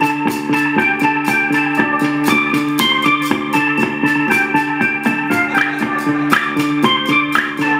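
Upbeat electronic dance music: a steady quick beat over a held low synth note, with a bright keyboard melody of short notes on top.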